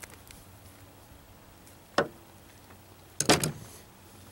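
Hand crimping pliers squeezing a marine heat-shrink butt connector onto 18-gauge wire: a sharp metallic click about two seconds in, then a louder clatter of clicks about a second later.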